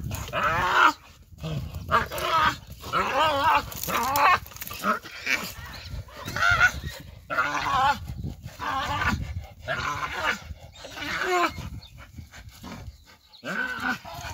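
A dog and a baboon fighting, with repeated shrill, wavering screams and snarls and short gaps between them, dropping off briefly near the end.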